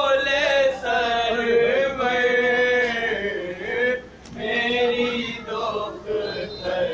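A man's voice loudly chanting a noha, the Shia Muharram lament, in long held melodic phrases, with a short break about four seconds in.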